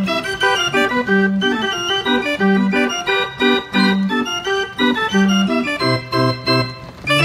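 Organ music with a steady oom-pah beat: a low bass note about every second and a quarter under a quick, bright melody, in the manner of a carousel band organ.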